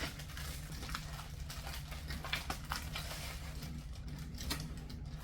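Plastic packaging crinkling and rustling, with many small sharp crackles, as a store-bought pizza crust is unwrapped and handled.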